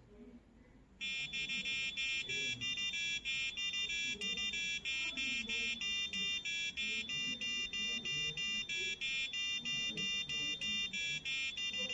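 The buzzer of a home-built STM32 alarm clock goes off about a second in, playing a fast melody of short, buzzy electronic notes as its alarm.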